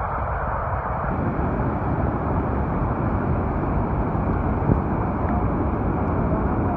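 Steady, even rushing noise of fast-flowing floodwater.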